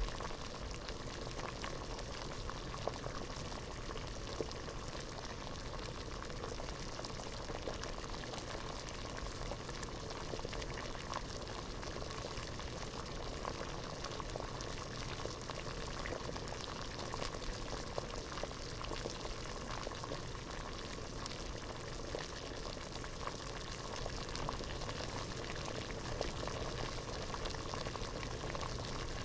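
Water boiling in a pot: a steady, dense bubbling with many small pops and gurgles, recorded in binaural stereo.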